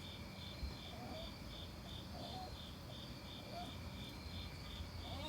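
Cricket chirping steadily, about two chirps a second, with a few faint short whimpers from the dog underneath.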